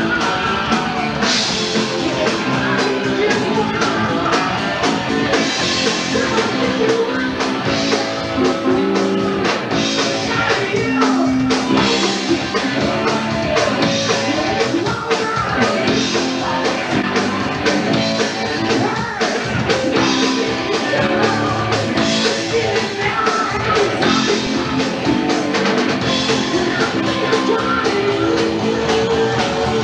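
Live rock band playing: electric guitars, bass and drum kit with a singer, recorded from within the club audience, with cymbal crashes about every two seconds.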